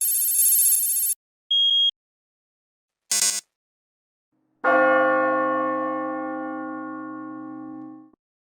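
A run of separate electronic notification sounds: a buzzy tone lasting about a second, a short beep, a brief chirp, then a long bell-like chime that rings on and fades away over about three and a half seconds.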